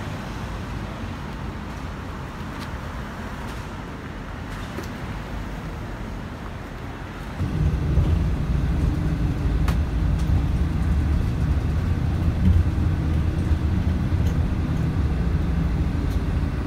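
City road traffic: cars and buses running past with a steady low rumble, which turns much louder and heavier about seven seconds in.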